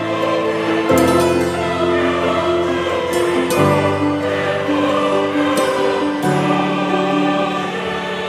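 Background music of slow, sustained chords that change about every two and a half seconds.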